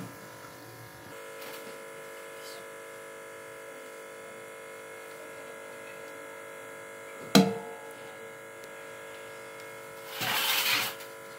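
Steady electrical hum made of several tones, with one sharp knock about seven seconds in as a plate strikes the metal pot while rice is spread in it, and a short rustling hiss about a second before the end.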